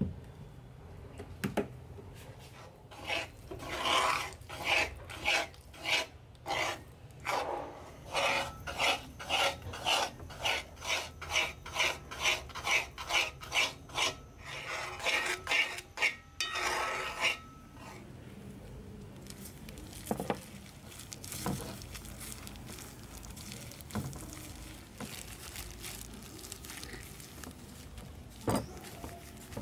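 A metal spoon stirring and scraping a thick starch dough around a metal pan, in regular rasping strokes about two a second for some fifteen seconds. The strokes then stop, leaving quieter handling with a few single knocks.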